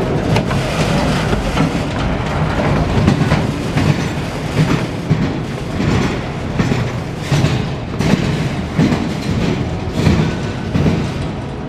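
Autorack freight cars of a CSX train rolling past, a continuous low rumble with the wheels knocking over rail joints in a repeating clickety-clack.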